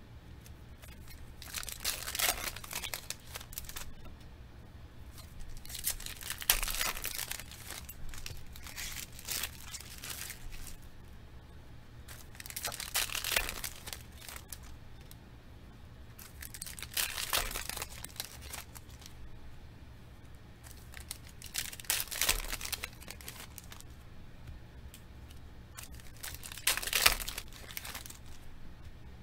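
Foil wrappers of Panini football trading-card packs torn open and crinkled by hand, a short crackling tear about every four to five seconds, seven times in all.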